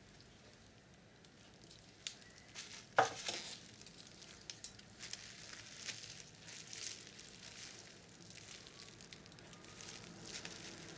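Small clicks, ticks and scratchy scraping from hands and tools working on the plastic and metal parts of a cassette recorder's tape mechanism, with one sharper click about three seconds in.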